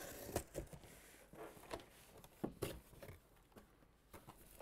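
Scattered light clicks and rustles of a cardboard shipping case being handled as its flaps are folded open, with blister-packed toy cars on cardboard shelves inside.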